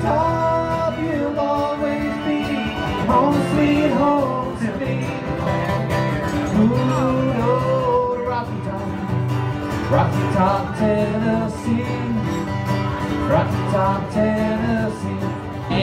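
Acoustic guitars strummed under a man singing: a live song with two guitars at the microphones.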